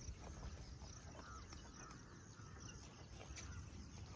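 Faint outdoor ambience: a low steady hiss with scattered faint ticks.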